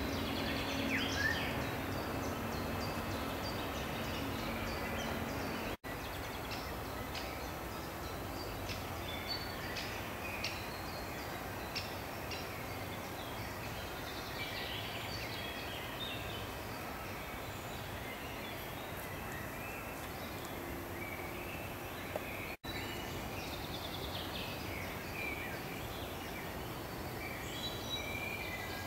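Scattered birdsong, short chirps and calls, over a steady outdoor background hiss. The sound is broken twice by brief dropouts to silence.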